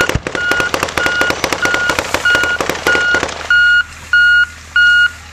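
Rapid automatic gunfire in long bursts, stopping about three and a half seconds in, over the steady beeping of a military truck's reverse alarm at about two beeps a second.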